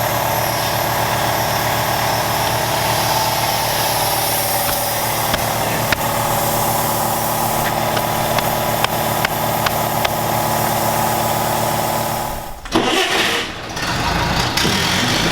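An engine running steadily at idle, with a few sharp clicks in the middle; near the end the sound drops out abruptly and an engine runs again.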